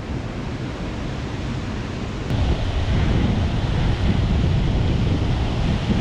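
Mountain stream water running, a steady rushing noise with wind buffeting the microphone; the water grows louder after a faint click about two seconds in.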